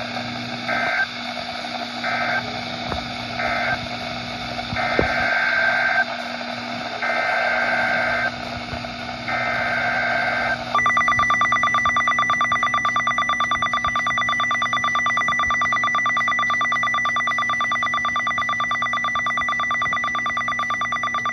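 Emergency Alert System SAME data bursts on NOAA Weather Radio. First come three short end-of-message bursts of warbling two-pitch data tones. Then come three longer header bursts announcing the next warning. About 11 seconds in, the steady 1050 Hz warning alarm tone starts and holds, over a hissy radio background.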